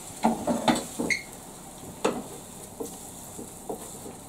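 A metal spatula clinking and knocking against a frying pan on a gas hob as a sandwich is turned. A quick run of knocks in the first second, one ringing briefly, another about two seconds in, then lighter taps, over a faint frying hiss.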